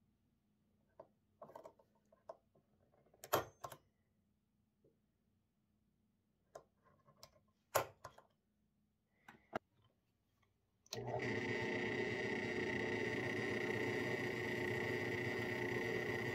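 Spring-loaded automatic center punch snapping twice, sharp clicks about three and eight seconds in, marking screw holes through a steel bottle opener, with small handling clicks around them. About eleven seconds in, a drill press motor starts and runs steadily.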